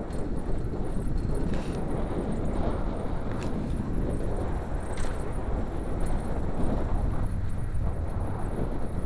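Wind buffeting the microphone of a camera moving along a road, a steady low rumble with a few light clicks.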